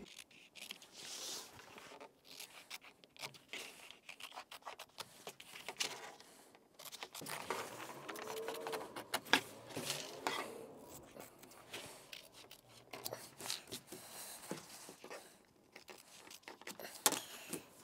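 Scissors cutting through cushion fabric: a long run of irregular snips, with the cloth rustling as it is handled.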